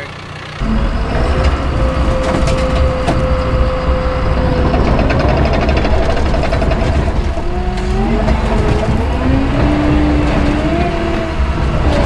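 John Deere 650K crawler dozer's diesel engine running steadily under load as its blade pushes a pickup truck, with wavering metallic squeals and creaks over the engine.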